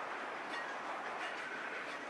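Conrail freight train's cars rolling past, steel wheels on rail making a steady rushing noise with a few faint clicks.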